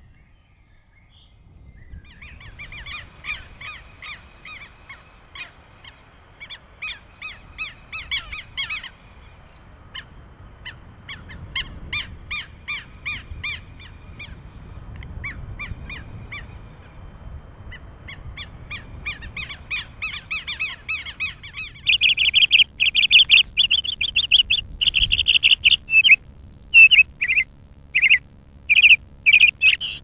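Songbirds singing: repeated trilled phrases a couple of seconds long with short gaps between them. About two-thirds of the way through this changes abruptly to a louder bird giving sharp chirps in quick runs.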